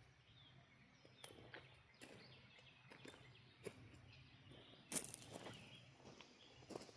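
Faint outdoor garden ambience: a few soft rustles and clicks, the loudest about five seconds in, with faint bird chirps in the background.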